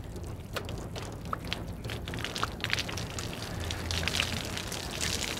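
Water pattering and splashing down as a soaked towel is twisted and wrung out.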